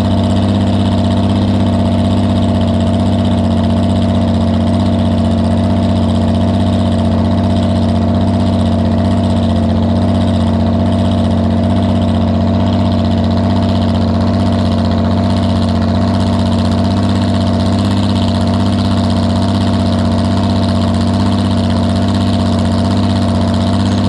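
Farmall 460 tractor engine running at a steady speed, with no change in pitch or load.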